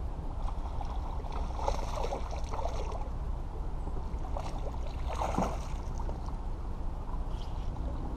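Water lapping against a small aluminium fishing boat, over a steady low wind rumble. Scattered short clicks and rattles come about a second in and again midway, from the fishing rod and reel being worked.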